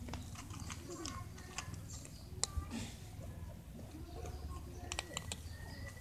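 Two cats crunching dry cat food from a small plastic tub: a run of irregular sharp clicks and crunches, over a steady low background rumble.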